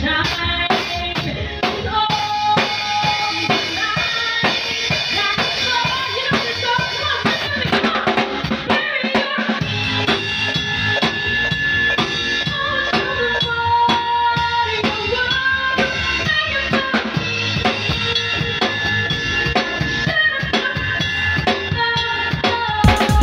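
A live band playing, with a drum kit close and prominent: a steady beat on bass drum and snare with cymbals, over sustained notes from the other instruments.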